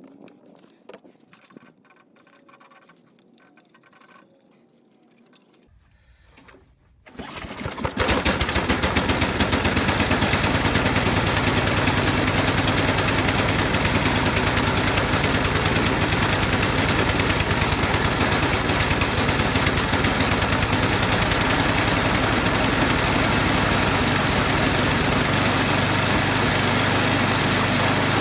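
Small gasoline engine catching about seven seconds in and then running steadily; before it starts, only a few light clicks and knocks.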